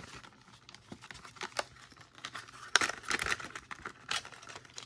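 Die-cast toy cars clicking and rattling, with scattered light clicks and a quick flurry of them about three seconds in.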